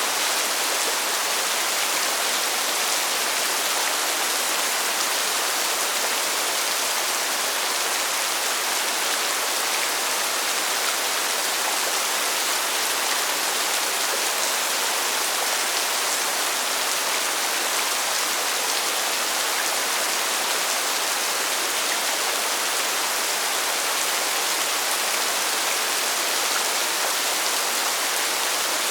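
Steady rainfall: an even, unbroken hiss of falling rain, bright and with little low rumble.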